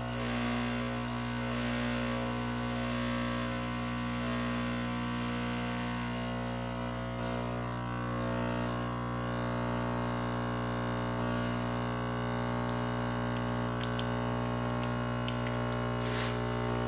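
Gaggia Brera espresso machine humming steadily as it runs its warm-up and pre-rinse cycle. A short click sounds near the end.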